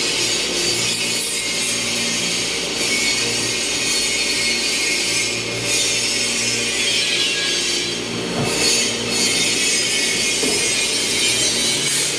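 CNC milling machine cutting metal: a steady spindle hum under a loud cutting hiss, swelling louder a few times.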